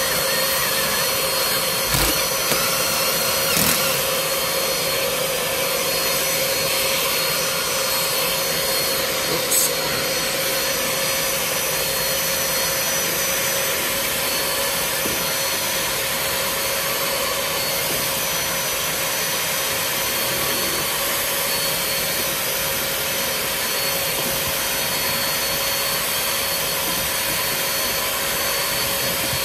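Carpet extractor's vacuum motor running steadily, with a constant whine, as its wand is pulled across the car's carpet to suck out shampoo water. A few brief knocks of the wand come in the first ten seconds.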